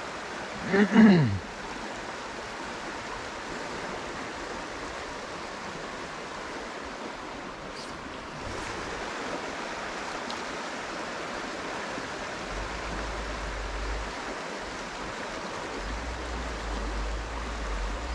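Stream water rushing steadily. A short voice sound with a falling pitch comes about a second in.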